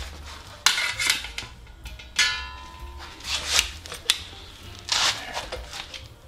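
Trimmed steel motorcycle rear fender being handled and set against the bike: a few separate knocks and scrapes, one about two seconds in ringing briefly like sheet metal.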